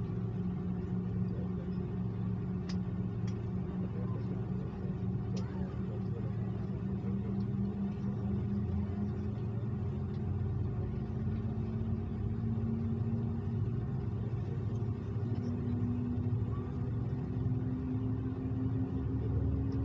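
Airbus A330 jet engines heard inside the passenger cabin: a steady low rumble with an engine tone that rises slowly in pitch. A few faint clicks come in the first few seconds.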